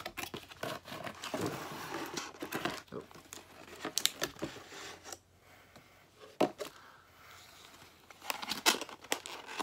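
Cardboard box and plastic packaging being handled as a craft kit is pulled out of it: crinkling and rustling for the first few seconds, then a few sharp clicks and knocks.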